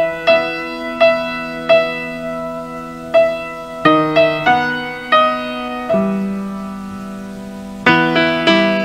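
Slow background piano music: single struck notes that ring and fade over held lower chords. The notes come about one every second, pause around two thirds of the way through, then come faster near the end.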